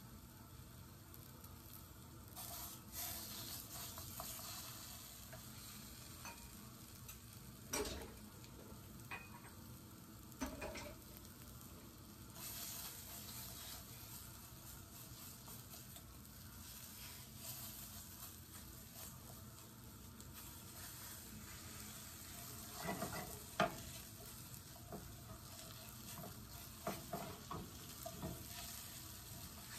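Tomato paste, carrots and onions sizzling quietly in a frying pan as the paste browns, with a spatula pressing and scraping through it now and then.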